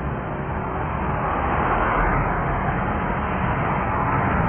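A car driving past close by on a street, its tyre and engine noise swelling near the end, over the steady noise of a jet airliner on the airfield beyond.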